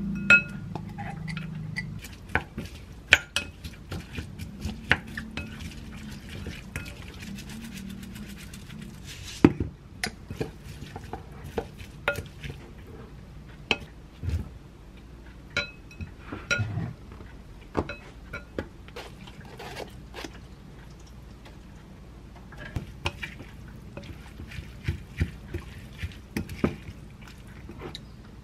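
Spoon stirring and tapping in a glass mixing bowl, first through a wet seasoning sauce and then tossing it with cockles and seaweed: an irregular string of sharp clinks and taps against the glass.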